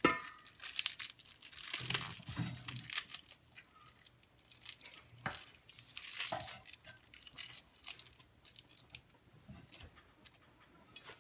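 Kitchen knife slicing freehand through crisp pak choi leaves and stems held in the hand: a run of irregular short crunchy cuts and leaf rustles, busiest in the first few seconds.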